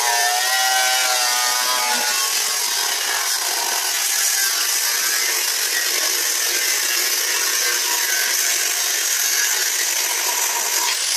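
Angle grinder cutting into the metal casing of a water heater along a seam: a loud, steady grinding, with the motor's whine wavering in pitch for the first couple of seconds as it bites into the metal.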